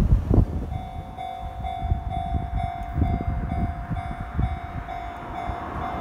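Japanese railway level-crossing alarm starting up about a second in and ringing its electronic bell tone steadily, about two rings a second, over a low rumble.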